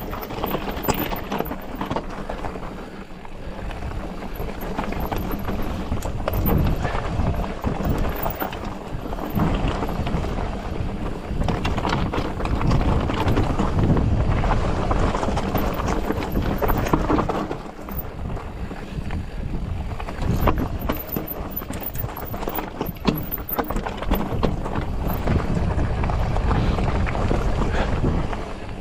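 Polygon Siskiu T8 full-suspension mountain bike riding fast down a steep, rocky dirt trail: tyres grinding over loose gravel and rocks, with a constant rattle and rapid knocks from the bike jolting over them.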